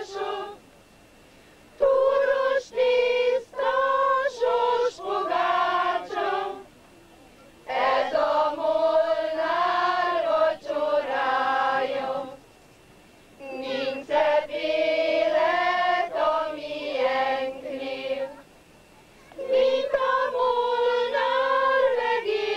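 Choir of high voices singing unaccompanied, in phrases of about four to five seconds with short silent breaks between them.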